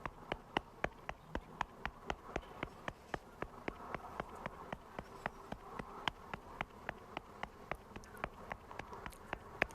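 A steady, even run of sharp clicks, about four a second, over a faint continuous hum.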